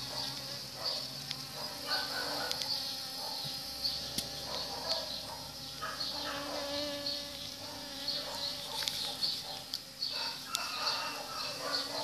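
Honeybees buzzing close by as they work a flower; the buzz swells and fades as they move about. A steady, pulsing high-pitched chirring runs behind it.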